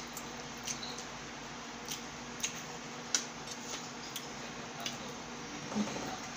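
Close-up eating sounds: scattered sharp clicks and smacks as fried chicken is handled and eaten, with a denser crunching bite near the end. A steady faint hum runs underneath.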